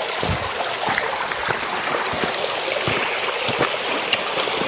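Small shallow stream rushing and trickling over stones, with a few light knocks of footsteps on the rocky path.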